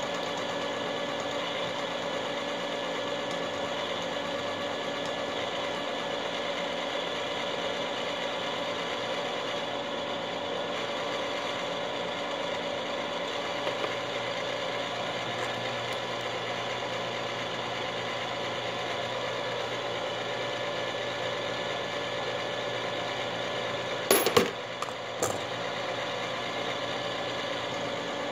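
Frankford Arsenal Platinum Series Case Prep and Trim Center running, its motor giving a steady hum. A few sharp metallic clinks of brass cases come about 24 seconds in and are the loudest sounds.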